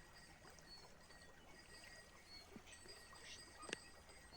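Near silence: faint background noise, with one short faint click near the end.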